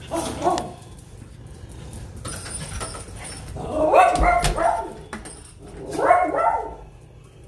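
Small dogs barking and yapping in three short bouts, the loudest about four seconds in.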